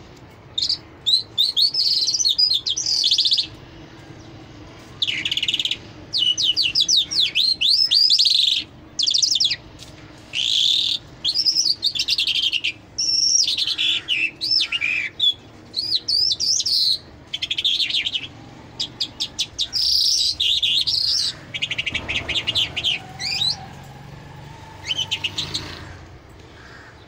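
Caged lark (a Mashadi jal) singing non-stop: a long, varied song of rapid high trills and chirps in quick phrases, broken by short pauses.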